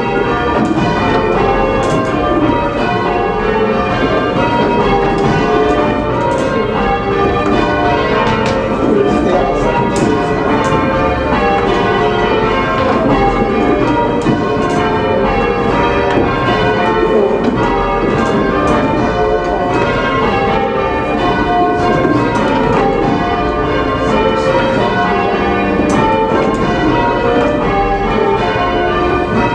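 Church bells change ringing: a steady, unbroken succession of strikes, each bell's tone ringing on into the next so that they overlap.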